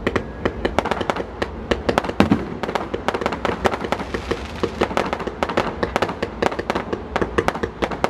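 Fireworks display: a rapid, unbroken run of bangs and crackles from shells bursting overhead, several reports a second.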